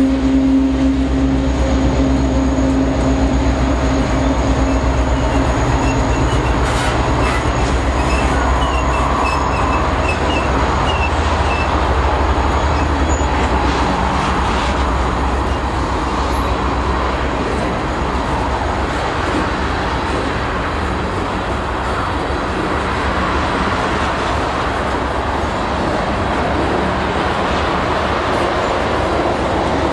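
Utah Railway coal hopper cars rolling past, a steady rumble of steel wheels on rail. The diesel locomotive's engine drone fades out in the first few seconds, and a few faint wheel squeals chirp near the middle.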